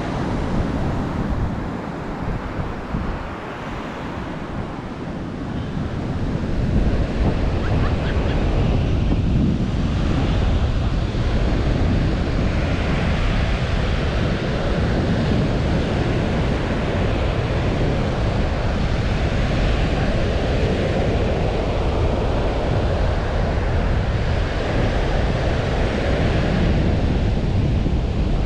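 Surf washing onto a sandy beach, with wind buffeting the microphone in a low rumble. Both get louder about six seconds in and then hold steady.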